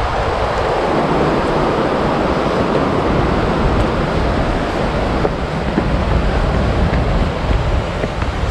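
Steady rush of a river running beneath a bridge, with wind buffeting the microphone.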